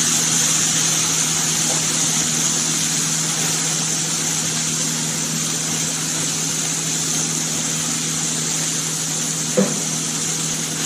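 Chicken breast in a cast iron grill pan and diced potatoes with broccoli in a skillet sizzling steadily as they fry, over a steady low hum. A light knock comes near the end.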